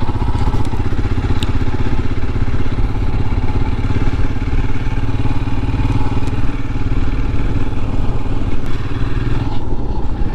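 Royal Enfield Himalayan's 411 cc single-cylinder engine running at low road speed, its firing pulses making a steady, even low beat.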